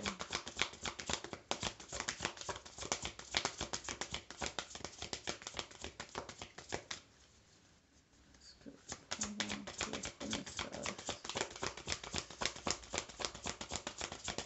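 A deck of oracle cards being shuffled by hand, a rapid run of soft card flicks and slaps. The shuffling stops for about a second and a half a little past halfway, then starts again.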